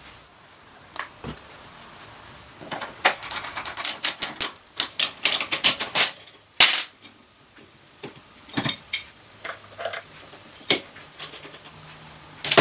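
Metal tools and parts clinking and knocking, with a quick flurry of ringing metallic clicks from about three to six seconds in, then scattered single knocks.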